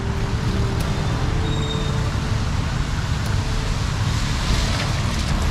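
Road traffic: cars passing close by on a wet street, a steady rumble of engines with tyre hiss.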